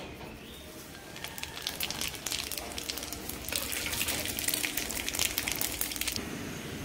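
Nigella seeds (kalo jeere) spluttering and crackling in hot mustard oil as a tempering, a dense run of rapid little pops. It starts about a second in and cuts off suddenly near the end.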